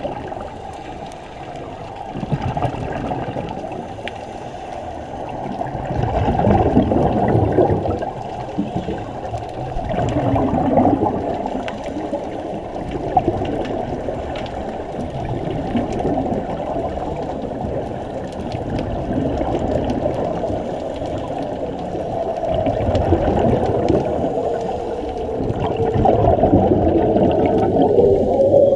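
Scuba divers' exhaled regulator bubbles bubbling and gurgling underwater, a muffled, low noise that swells louder every few seconds with the exhalations.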